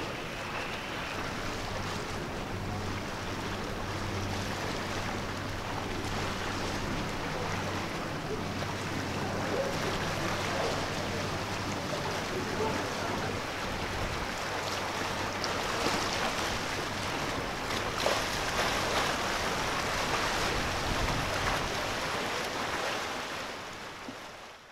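Wind and sea noise with a low, steady boat-engine hum that dies away about halfway through, and a few light knocks later on; the sound fades out at the end.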